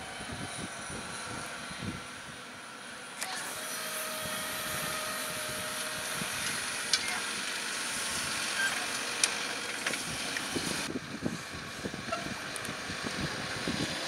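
John Deere 6R 250 tractor's six-cylinder diesel engine running steadily as it works a reversible plough on the headland, with a couple of short sharp knocks partway through.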